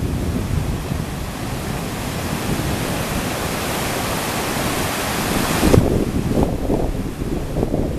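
Whitewater rapids rushing loudly as a steady hiss, with wind buffeting the microphone in low rumbles. The high hiss drops away suddenly about six seconds in, leaving mostly the low rumble.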